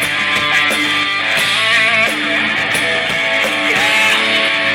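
Rock music instrumental passage with no singing: guitar-led, with a few bending lead notes over a steady drum beat.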